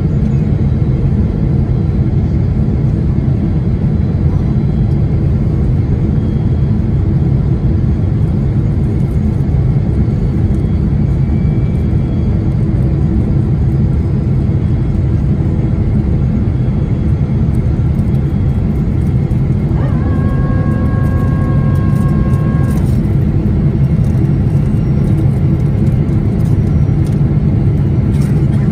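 Steady low rumble of engine and airflow noise inside a Boeing 777-300ER cabin on final approach. About twenty seconds in, a steady tone with several pitches sounds for about three seconds and then stops.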